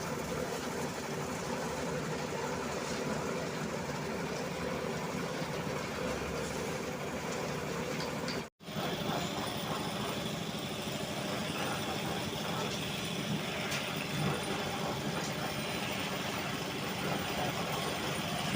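A heavy engine of road-construction machinery running steadily, with a momentary dropout about eight and a half seconds in.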